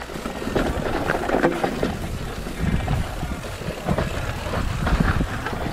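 Mountain bike rattling and bumping down a rough downhill trail at speed, with wind buffeting the on-board microphone: an uneven low rumble broken by short knocks.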